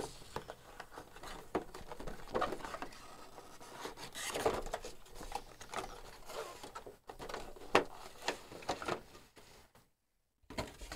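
Cardboard toy box being opened by hand: the end flap pulled open and the inner cardboard tray slid out, an irregular run of rustling, scraping and light taps and clicks, with a brief gap near the end.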